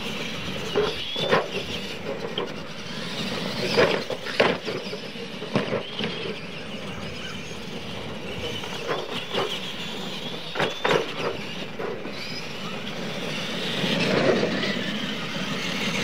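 Electric motors and gears of two Clod Buster-style RC monster trucks whining as they race, with several sharp knocks and clatters from the trucks hitting ramps and bouncing over the dirt.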